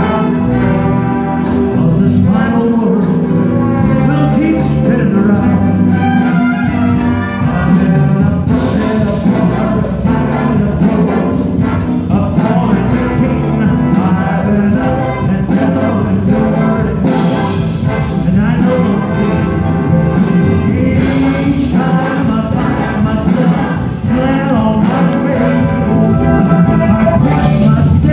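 A live band with strings and brass playing a song, with a male lead singer and female backing singers.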